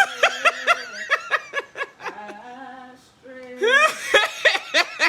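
A person laughing hard in two runs of quick, high ha-ha bursts, with a short pause between them.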